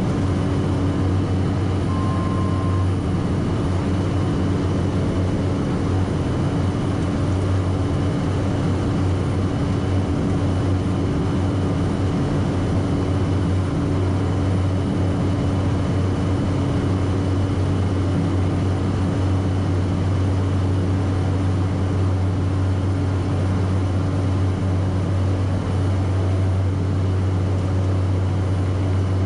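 Cessna 208 Caravan seaplane's PT6A turboprop engine and propeller droning steadily in flight, heard from inside the cabin: a constant low hum with a steady higher whine over it.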